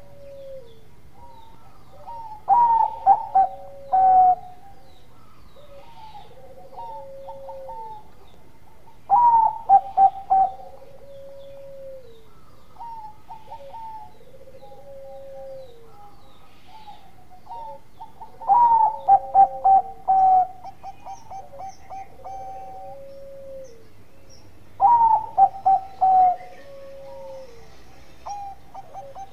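Zebra dove (perkutut) singing its staccato cooing song, the 'bekur' prized in Bangkok-type perkutut. Four loud bursts of quick rolling coos come several seconds apart, with softer gliding coo notes repeating between them.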